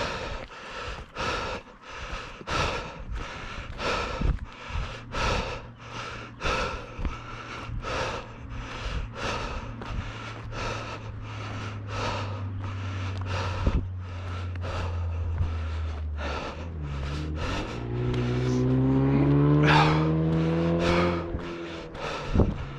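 A motor vehicle's engine running steadily, then rising in pitch and getting louder in the last few seconds as it speeds up, before dropping away. Under it runs a rhythmic sound about twice a second.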